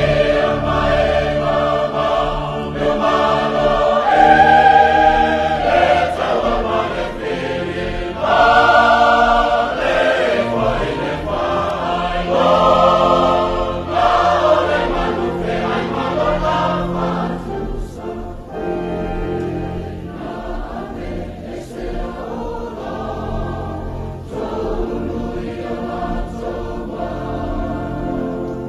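A mixed choir singing a Samoan-language hymn in several parts, swelling louder a few seconds in and again near the ninth second, then softer for the last third.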